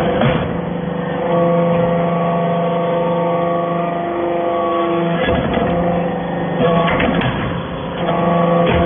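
Hydraulic metal-chip baler running: a steady machine hum whose pitch shifts a few times, with several sharp clunks.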